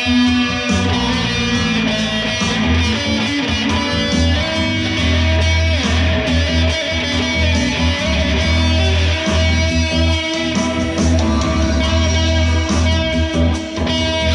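Electric guitar played through a small combo amp, with a steady low bass line running beneath it.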